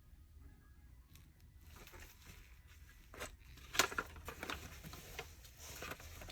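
Parts of a Dyson vacuum cleaner head being handled by hand. Faint rustling, then scattered clicks and light knocks from about three seconds in, the sharpest near four seconds.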